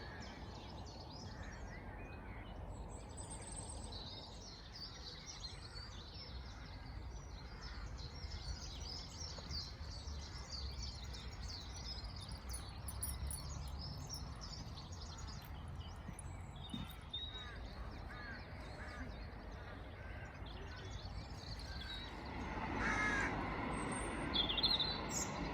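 Many small songbirds singing and chirping at once in a busy chorus over a low steady rumble, with a louder bird call about 22 seconds in.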